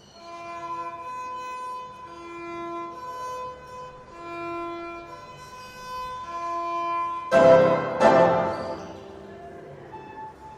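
Violin playing a slow melody of long held notes, then two loud, harsh bowed strokes about seven and eight seconds in that fade away.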